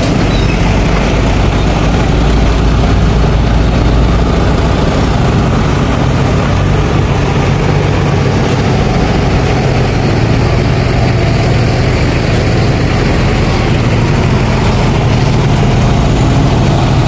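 Heavy cargo truck engines running close by at low speed, a steady low drone as loaded trucks crawl and tilt through a deep pothole on a broken road.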